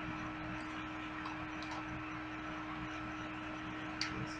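Steady electrical hum over a background hiss, with a sharp click about four seconds in.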